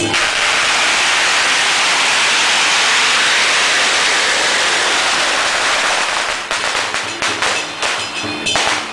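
A long string of firecrackers going off in one dense, rapid crackle of bangs. After about six seconds it thins out into separate, irregular pops.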